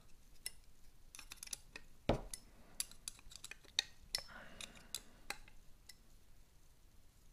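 Hex driver clicking and ticking against small metal screws as they are run into a carbon-fibre quadcopter frame's arms, in scattered light taps with a louder knock about two seconds in.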